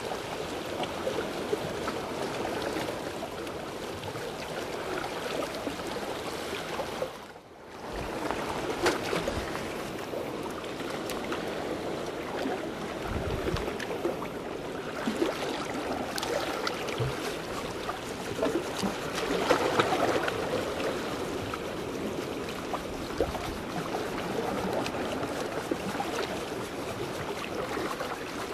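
Seawater washing and sloshing among the concrete tetrapods of a breakwater: a steady wash of water with small scattered clicks and splashes, dropping out briefly about seven seconds in and swelling a little later on.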